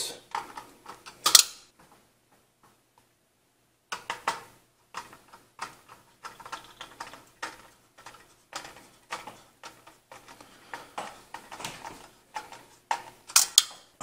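A screwdriver turning the CPU heatsink's mounting screws down into the bracket: a run of small irregular metal clicks and ticks. The track goes dead silent for about two seconds shortly after the start.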